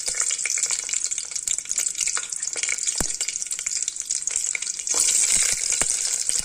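Whole small shallots and mustard seeds frying in hot oil in an aluminium pressure cooker: a steady sizzle and crackle with scattered sharp pops, growing louder about five seconds in.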